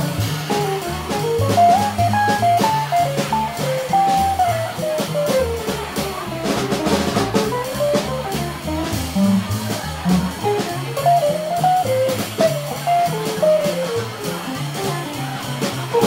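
Jazz guitar trio playing a bebop tune: hollow-body archtop guitar playing fast single-note lines over upright bass and a drum kit played with sticks, with steady cymbal strokes.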